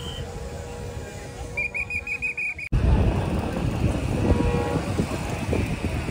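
Outdoor site ambience: a steady low background noise, with a rapid high-pitched trill of about nine pulses a second lasting about a second, shortly before the halfway point. It then cuts abruptly to a louder, deeper noise.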